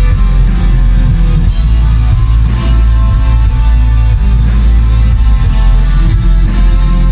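Black metal band playing live, loud and continuous, with distorted electric guitars and drums.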